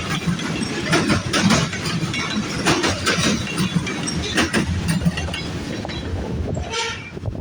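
Freight cars of a grain train rolling past, their wheels clicking over rail joints in an uneven clickety-clack over a steady rumble.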